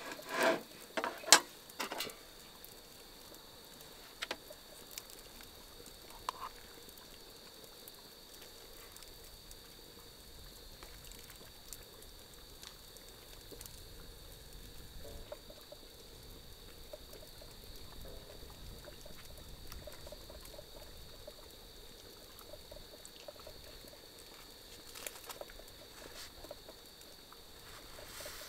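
Insects droning in a steady, even high tone, with water lapping faintly underneath. A few sharp clatters and knocks come in the first two seconds, then isolated ticks.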